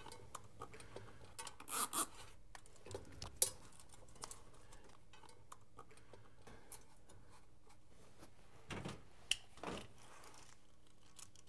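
A plastic zip tie being threaded and pulled tight around a copper pipe: quiet clicks and rustles of handling. There are short louder bursts about two seconds in and again around nine seconds in.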